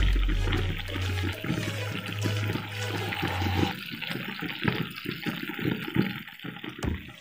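Sauce bubbling and simmering in a wok of pok choy, a steady wet crackle and burble. Background music plays under it and its bass drops away about halfway through.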